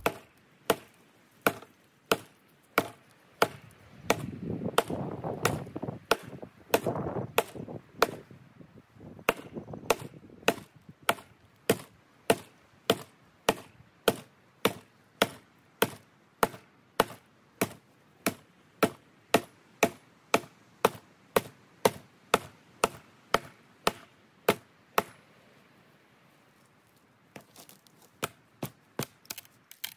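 Wood being chopped with a blade in quick, regular strokes, about five every three seconds, each a sharp crack. The chopping stops about 25 seconds in, and lighter, fainter strikes start again near the end.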